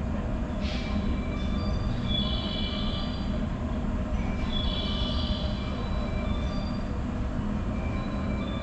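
A train running on the rails out of sight, a steady low rumble with high metallic wheel squeal twice.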